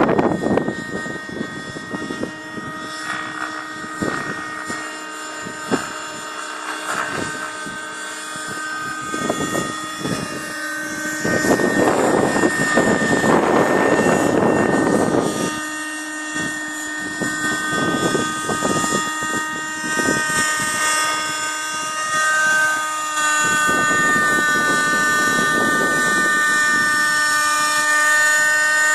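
Thunder Tiger Raptor 30 RC helicopter in flight: its small two-stroke nitro glow engine and rotor make a steady high whine. Stretches of rushing noise come and go, the longest in the middle, and the sound gets a little louder about three-quarters through.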